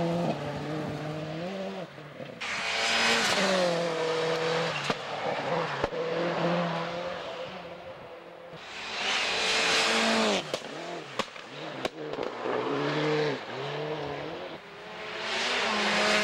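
Turbocharged four-cylinder World Rally Cars at full speed on a snowy stage, engines revving hard and dropping in pitch at each gear change. Three cars go past, each with a loud rush of noise, the last a Ford Focus WRC near the end. A few sharp cracks come in between.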